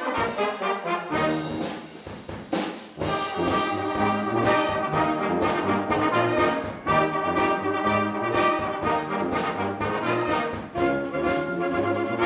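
Amateur wind band playing together: flutes, French horn, saxophones and low brass over a steady percussive beat.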